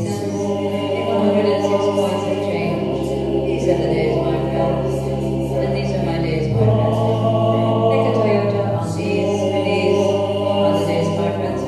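Choral music: voices singing slow, held chords over low sustained bass notes that change a few times.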